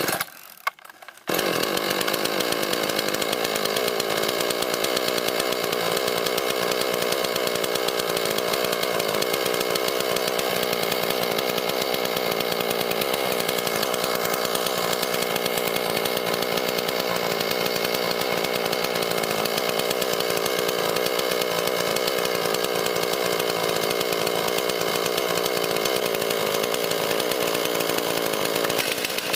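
Chainsaw running steadily at high speed. It cuts in abruptly about a second in, just after two brief sharp sounds.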